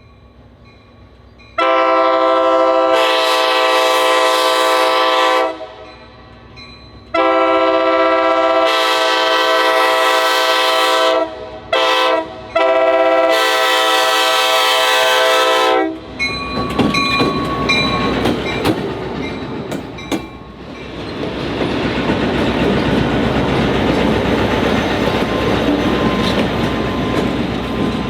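Amtrak F40PH diesel locomotive's air horn sounding a chord in the grade-crossing pattern of long, long, short, long blasts, the standard warning for a road crossing. The train then rolls past with rising wheel-and-rail noise and clickety-clack of the wheels over the rail joints.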